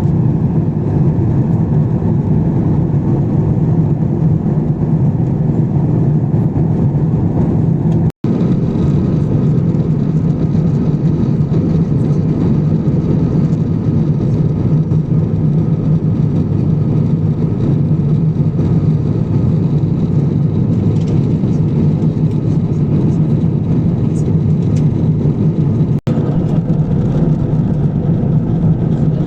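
Steady, loud cabin drone of an Airbus A350-1000 in flight, the engines and rushing air heard from a window seat. It cuts out for an instant about eight seconds in.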